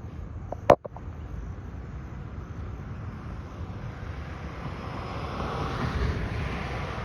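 Outdoor background noise with wind on the microphone and a vehicle passing, swelling about five to six seconds in and fading again. A single sharp click a little under a second in.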